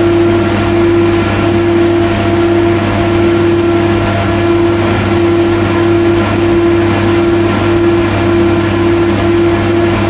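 Factory machinery running steadily: a constant loud mechanical drone made of several steady tones, the strongest mid-pitched, over a low hum and a hiss of machine noise.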